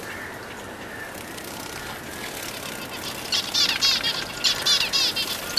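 Pet finches chirping: a rapid series of high, quick chirps in two bursts starting a bit past halfway, over a steady background hiss.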